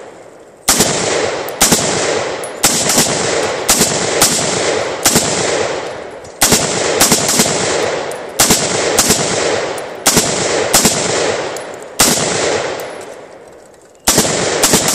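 Daniel Defense MK18 5.56 carbine firing about a dozen strings of sharp shots, singles and quick pairs or triples, each followed by an echo that fades over about a second.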